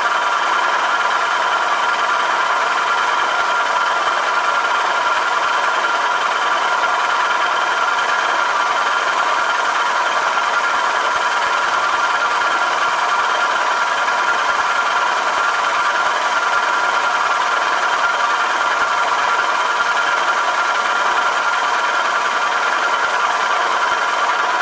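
Machine spindle running a drill into a snapped, rusted steel exhaust stud sunk in an aluminium cylinder head, a steady whine that holds unchanged throughout.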